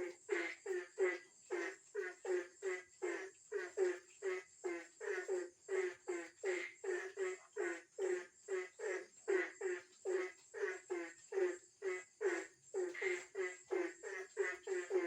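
A frog calling over and over in rapid short croaks, about three a second, with no break. A steady high-pitched insect drone sits behind it.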